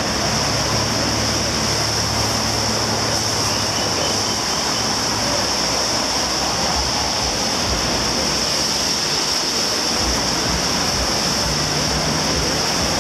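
Steady hiss of a rain-wet city street, rain and tyres on wet pavement, with a low vehicle engine hum that comes and goes.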